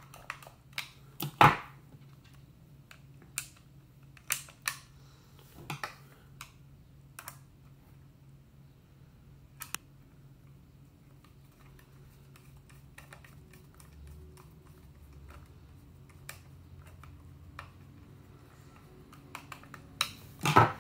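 Scattered clicks and knocks of the plastic housing of a Trimline telephone handset being handled and screwed back together. The loudest knock comes about a second and a half in; the clicks thin out after about ten seconds and bunch up again near the end.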